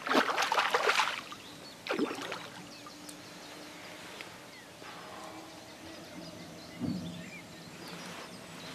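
A hooked carp splashing and thrashing at the surface close in while being played on a rod. The loudest splashing is in the first second, with another short splash about two seconds in.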